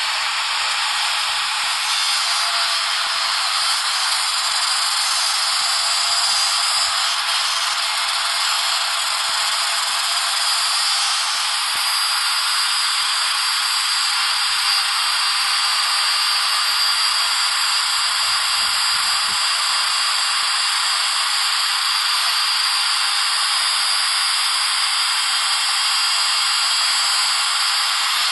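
УШМ-230/2100М angle grinder running with its disc held at an angle against a steel wheel hub, the grinder's spin turning the hub so the disc grinds the hub's centring spigot down by about a millimetre; a steady grinding hiss.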